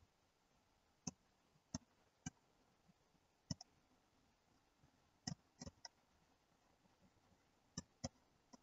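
Computer mouse buttons clicking, about nine short sharp clicks at irregular spacing, some in quick pairs, with near silence between them.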